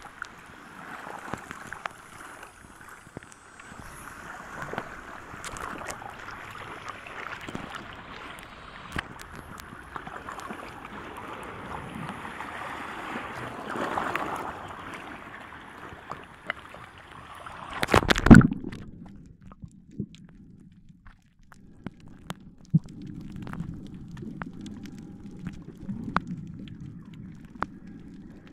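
Seawater sloshing and splashing around a camera held at the surface while snorkeling, with a loud splash about two-thirds of the way through as it plunges under. After that the sound turns muffled and low, as heard underwater, with faint scattered clicks.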